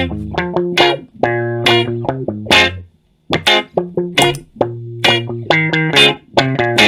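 Instrumental dub music: rhythmic plucked guitar chord stabs over a bass line, with a short break about three seconds in.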